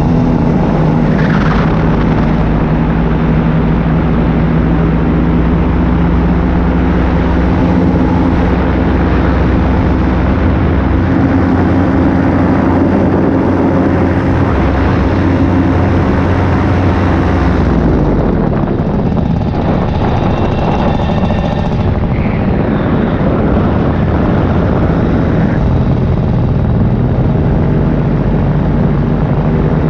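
Paramotor engine and propeller running steadily under power in flight. About eighteen seconds in the engine note drops as the throttle eases off, and it rises again a few seconds before the end.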